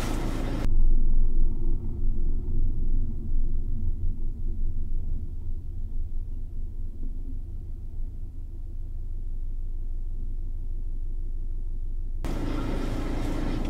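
Low rumble of a Citroën C4 Picasso's 1.6 HDi diesel engine and drivetrain heard inside the cabin, the engine running with its oil drained. The rumble is uneven at first and turns steady after about nine seconds, as the car slows to a stop.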